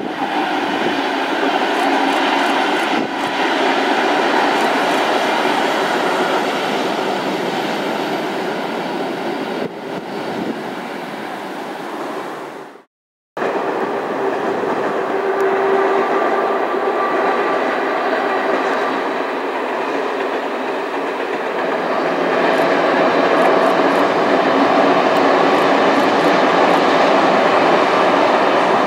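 BDZ passenger train running along the line, a steady loud rolling rumble of wheels on rails with some clickety-clack. It breaks off briefly about 13 seconds in.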